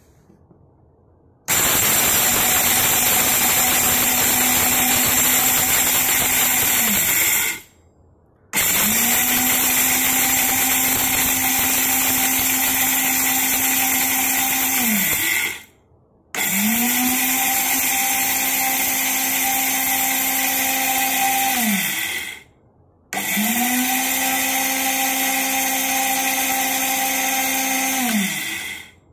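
National electric spice grinder with a stainless steel jar grinding black peppercorns into powder, switched on in four runs of about six seconds each. Each run starts abruptly at full speed and its pitch falls away as the motor winds down after switch-off.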